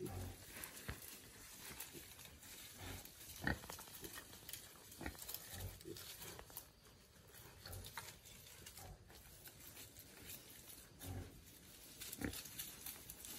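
Wild boar and piglets rooting through dry leaves and twigs: soft, short low grunts every couple of seconds over light rustling and crackling, with one sharper snap about three and a half seconds in.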